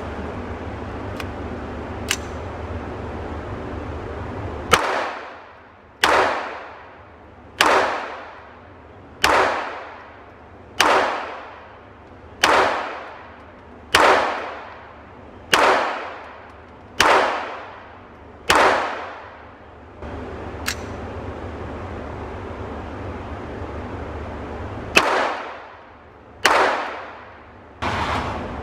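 Pistol shots fired at a steady pace, about one every one and a half seconds: ten in a row, then two more after a pause. Each crack is followed by an echo that fades over about a second, with a few much fainter cracks in between.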